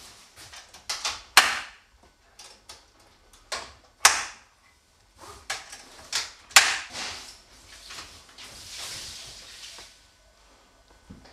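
Irregular sharp clicks and knocks, three of them louder, with bursts of rustling between. These are handling noises from the parts of an airtightness-test blower fan being fitted together and mounted on its tripod.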